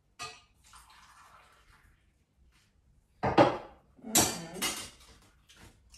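Metal cooking pot clattering against a table and cups as it is set down after pouring, with loud knocks about three seconds in and again about a second later. Before that, a faint trickle of tea being poured into cups that stops about two seconds in.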